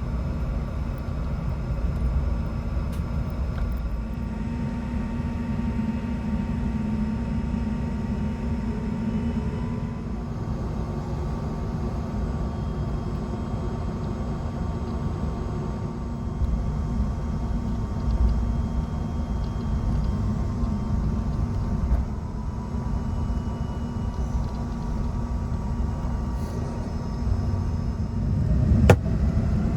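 Steady cabin noise inside an Airbus A380: a low rumble with a few faint steady tones above it, and one sharp click near the end.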